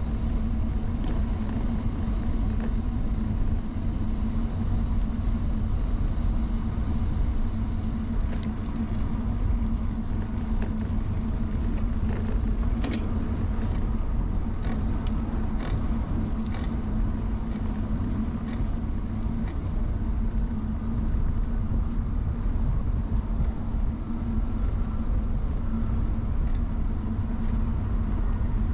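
Steady rumble of an early-1970s Peugeot UJ-10 ten-speed bicycle being ridden: tyre and road noise with wind on a bike-mounted GoPro, which sits under a wind cover. Scattered sharp clicks and rattles come in from about eight to nineteen seconds in.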